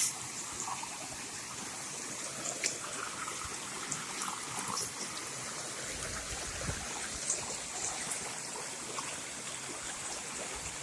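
Water running steadily in a small stream, a soft trickling flow with a few faint splashes.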